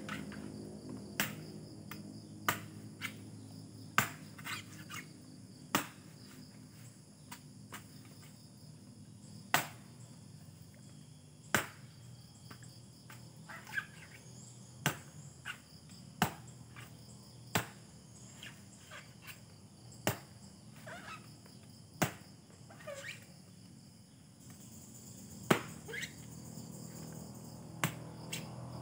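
Steady high drone of crickets, crossed every second or so by irregular sharp snaps or knocks from close work by hand at the ground.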